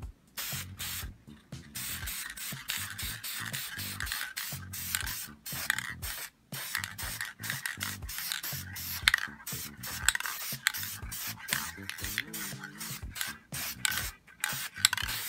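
Aerosol spray paint can hissing in many short bursts with brief gaps between them, light quick passes of paint.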